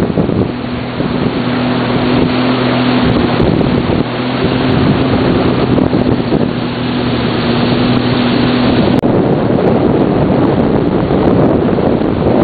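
Sea-Doo personal watercraft engine running at a steady pitch under heavy wind noise on the microphone; the engine tone drops out about nine seconds in, leaving the wind and water rush.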